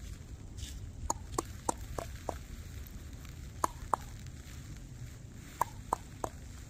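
Sharp clicks in short runs about a third of a second apart, five, then two, then three, over a steady low wind rumble on the microphone.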